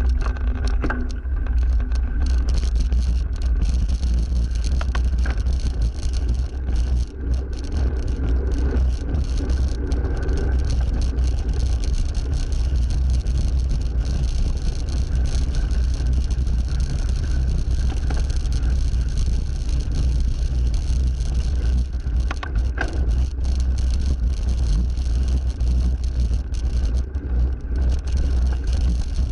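Steady wind rumble on the microphone of a moving bicycle, with road noise and motor traffic passing.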